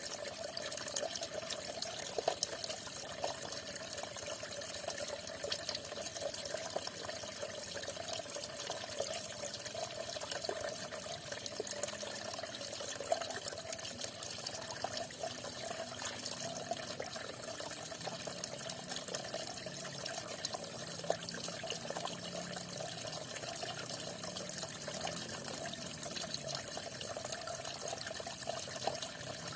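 Falling water splashing steadily, a continuous rush dotted with many small splashes and drips.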